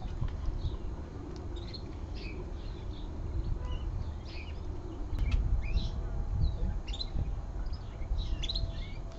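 Small birds chirping, short high calls repeating every second or so, over a low rumble.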